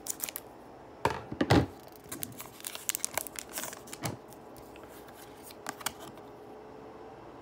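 Scissors snipping through a foil Pokémon booster pack. The wrapper then crinkles loudly as it is pulled open, loudest about a second and a half in, followed by light clicks and rustles as the cards are slid out and handled.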